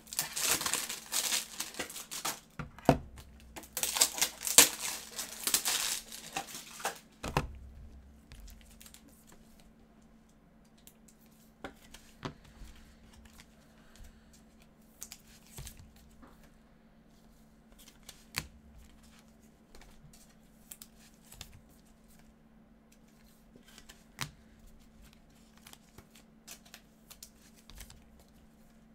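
Foil trading-card pack wrapper crinkling and tearing open for about the first seven seconds. After that comes quieter handling of the cards, with scattered soft clicks and taps.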